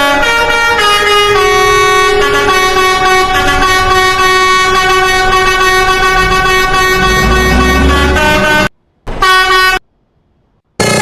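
Bus telolet basuri horn, a multi-tone musical air horn, playing a tune of stepped chords. A low rumble builds about six seconds in, and the sound cuts out abruptly twice near the end.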